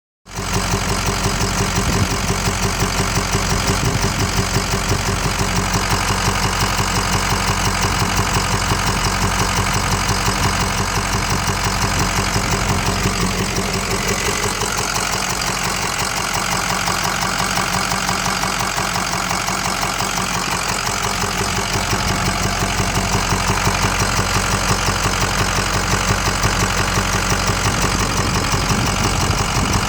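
Ford 6.0 Power Stroke V8 turbo-diesel idling steadily with a fast, even clicking running along with the engine, the clicking noise that the owner is asking about.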